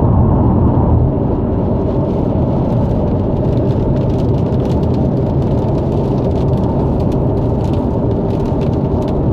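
Steady road and engine rumble inside a car cabin at freeway speed, with faint scattered ticks over it.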